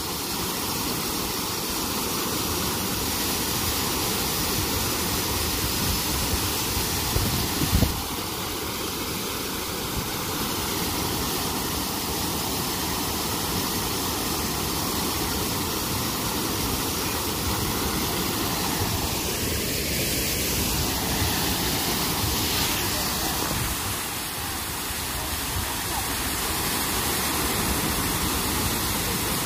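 Water gushing through the open sluices of a canal lock gate and spilling into the lock chamber as it fills: a steady rush of falling water, with a brief thump about eight seconds in.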